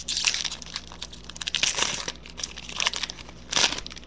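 Trading-card pack wrapper being torn open and crinkled by hand, in a few short crinkly bursts.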